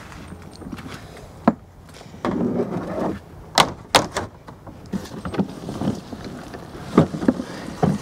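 Garden shed door being opened, with several sharp knocks and clicks and a short scraping stretch, then a wheeled garden cart being pulled out with more knocks and bumps.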